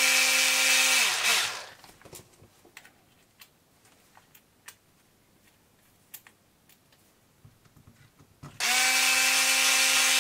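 Cordless electric screwdriver tightening a screw on the hub of a small RC car. Its motor runs with a steady whine for about a second and a half and winds down, a few light clicks follow, and it runs again for the last second and a half.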